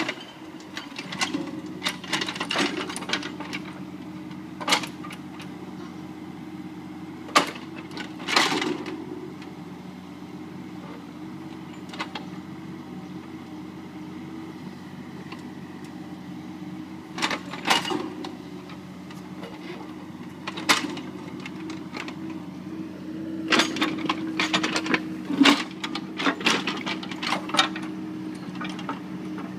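Mini excavator's diesel engine running steadily under work, with repeated sharp metallic clanks and knocks from the bucket and arm as it digs at a large tree stump. The clanks come in clusters, several at a time, with quieter stretches of engine alone in between.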